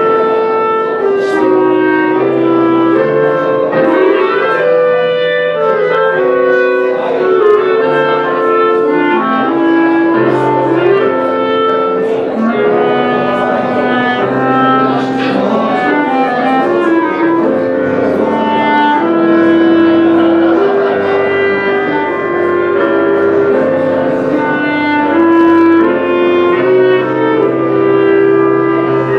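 Clarinet duet: two clarinets play a melody together in close harmony over a lower sustained accompaniment.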